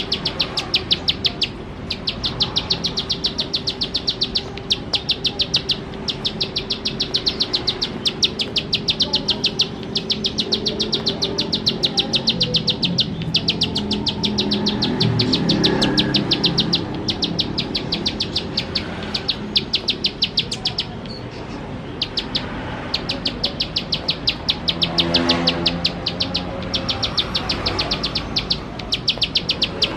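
Plain prinia (ciblek sawah) singing its rapid 'nembak' song: runs of high, sharp ticking notes at about ten a second, each run lasting one to two seconds, with short breaks between. Fainter low background sounds swell briefly near the middle and again later.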